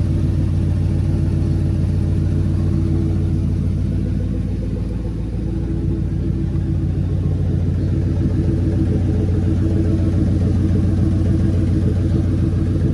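2003 Ford Crown Victoria Police Interceptor's 4.6-litre V8 idling steadily while warming up, running smoothly with no misfire after a spark plug thread insert repair, which the owner takes as the misfire being fixed.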